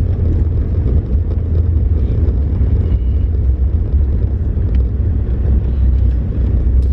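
Steady low rumble of a running vehicle, even throughout.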